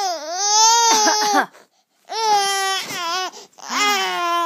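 A baby's voice in three long, high wails, each lasting about a second or more, with short pauses between them; the pitch sags and rises within each and wavers near the end.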